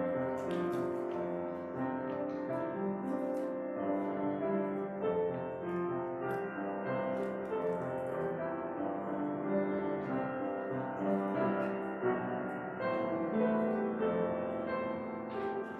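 Instrumental piano music, held notes and chords changing every second or so.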